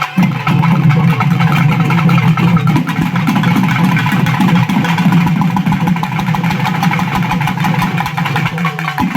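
Drums and instruments playing: rapid, dense drumming over a steady low drone, stopping at the end.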